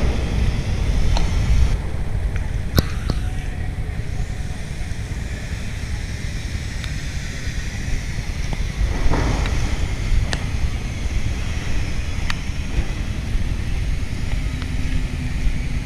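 Wind buffeting the microphone outdoors as a steady, uneven low rumble, with a few sharp clicks or knocks.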